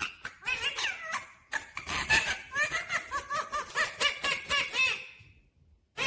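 Rose-ringed parakeet chattering: a quick run of short calls that rise and fall in pitch, several a second, stopping about five seconds in.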